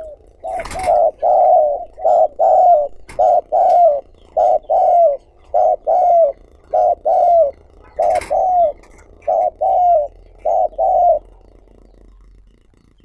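Spotted dove cooing: a rapid run of short, slightly falling coos, mostly in pairs, that stops about 11 seconds in. A few sharp clicks sound among the coos, the strongest about a second in and just after 8 seconds.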